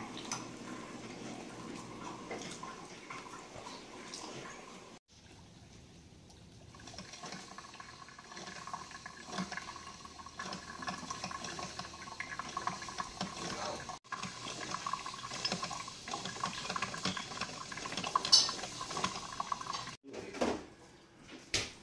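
Cuisinart drip coffee maker brewing: water gurgling and hissing into the carafe, with a faint steady tone. A couple of short knocks near the end.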